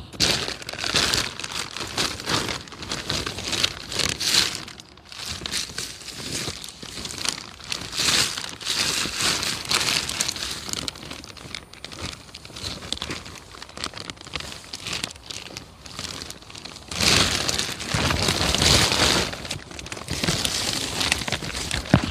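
Irregular crinkling and crackling of dry material being crumpled and handled, in uneven spells, loudest for a couple of seconds about seventeen seconds in.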